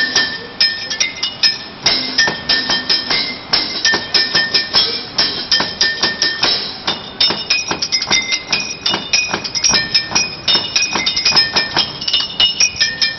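Street drummer playing a fast, busy pattern on a homemade kit of plastic buckets, cans and metal bowls and pan lids. Mostly sharp metallic hits that ring briefly at several different pitches, with little deep drum sound.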